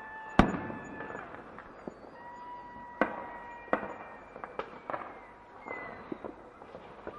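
Fireworks going off: a loud bang about half a second in, further strong bangs around three and nearly four seconds in, and scattered smaller pops and crackles. Several steady high whistling tones lasting a second or two run alongside.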